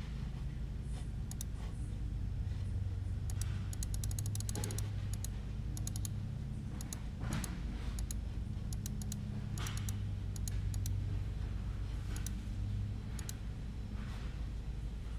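Scattered clicks of a computer mouse and keyboard, with a quick run of clicks about four seconds in, over a steady low hum.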